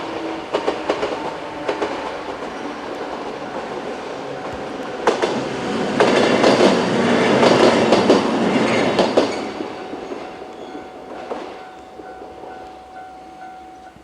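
103 series electric train running past, wheels clicking over the rail joints, loudest about six to nine seconds in and then fading. A level crossing bell rings alongside.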